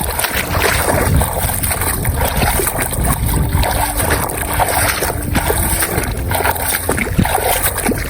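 Water splashing and sloshing irregularly, as a toy vehicle is rinsed in water, with faint background music.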